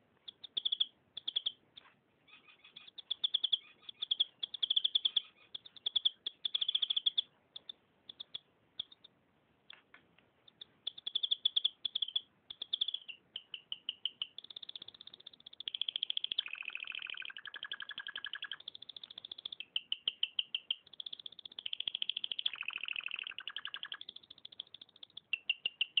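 Domestic canary singing: rapid trills and rolls. The trills come in short phrases with pauses at first, then run almost unbroken through the second half, with lower notes woven in twice.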